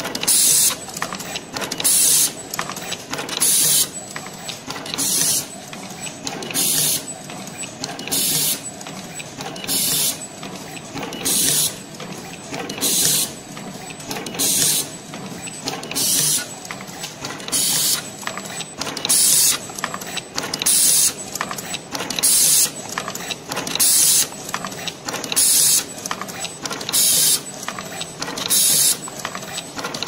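Automatic pre-insulated terminal crimping machine running through its repeating cycle: a steady mechanical clatter, with a short, loud hiss of compressed air about every one and a half seconds.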